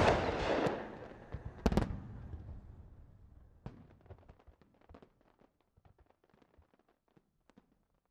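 Aerial firework bursting with a loud bang, then a second bang a couple of seconds later, followed by crackling and scattered pops that thin out over the next few seconds.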